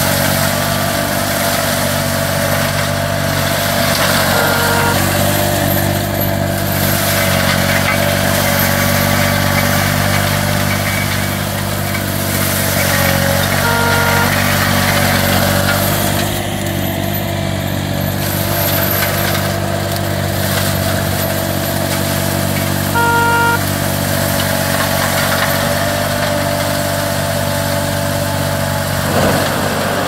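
Green Climber LV600 remote-controlled tracked slope mower, its Kohler engine running steadily under load while the front mulching head chews into dense vines and brush. A short beep sounds three times, about nine seconds apart.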